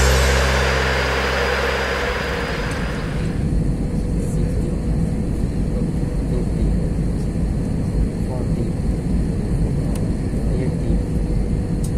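Airbus A320 cabin noise on final approach: a steady low rumble of the engines and rushing air with a steady hum. Background music fades out over the first three seconds or so.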